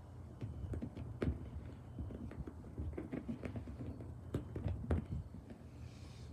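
A cat's paws scampering and pouncing while chasing a laser dot: quick irregular taps, with a few louder thumps.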